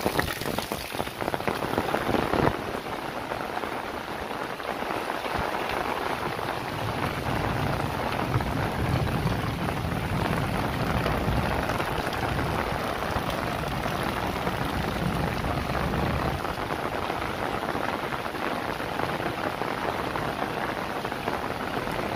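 Steady rain falling on wet concrete paving and walls. A low rumble runs underneath for several seconds midway.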